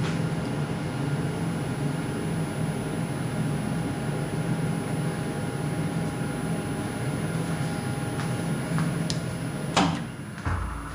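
SkyfireCNC SVM1-VMC vertical mill running with a steady hum. Near the end comes a sharp click, then a low thump, after which the hum drops to a lower level.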